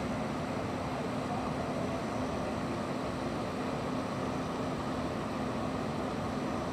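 Steady, even background noise with a faint low hum underneath, unchanging throughout.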